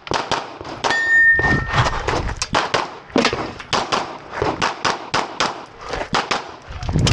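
A long string of rapid semi-automatic pistol shots, several a second, fired through a competition shooting stage. A short steady ringing tone sounds about a second in.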